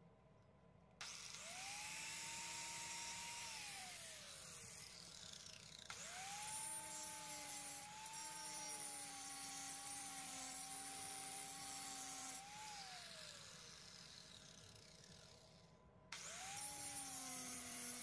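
Corded angle grinder with a small cutting wheel grinding through the steel plier jaws of a multitool, in three runs. Each run starts suddenly with a rising whine as the motor spins up, holds steady with the hiss of the wheel cutting metal, then winds down. There is a short run about a second in, a long one of about ten seconds, and a third start near the end.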